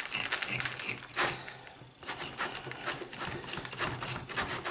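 Bonsai root rake scratching through the wet, compacted substrate and circling roots of a rootball: a quick, uneven run of gritty scrapes and clicks, with a short lull about two seconds in.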